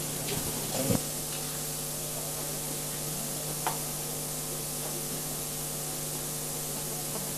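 Steady electrical hum with a layer of hiss, the hum carrying several even overtones, and a faint click a few seconds in.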